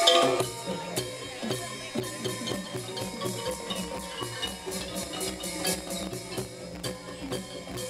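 Thai traditional ensemble music of the kind that accompanies likay: mallet-struck tuned percussion and drums playing over a steady beat.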